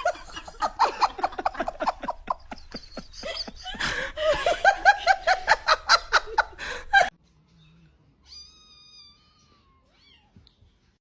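A cat calling amid human laughter, a rapid run of short pitched sounds that cuts off suddenly about seven seconds in. One faint drawn-out cat-like call follows a second later.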